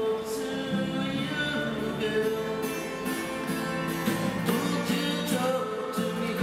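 Music: acoustic guitar playing, with some singing.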